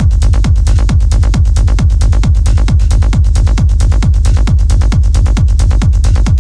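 Techno track: a four-on-the-floor kick drum, each hit dropping in pitch, at a little over two beats a second, over a steady deep bass and fast hi-hat ticks.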